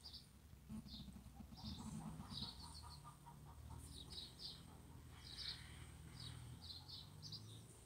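Small birds chirping faintly, short quick clusters of high notes repeating every second or so, over a low steady hum.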